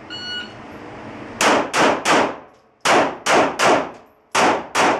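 A shot timer's start beep, then pistol fire in a three-shot drill: three quick shots, a short pause, three more, a pause, and two more, about a third of a second apart within each group.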